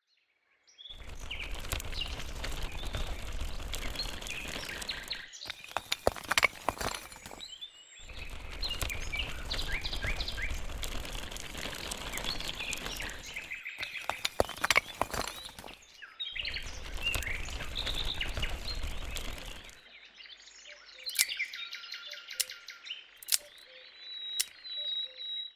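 Small birds chirping over steady outdoor background noise, with a few sharp clicks. The ambience stops and restarts abruptly several times, and thins to sparse chirps near the end.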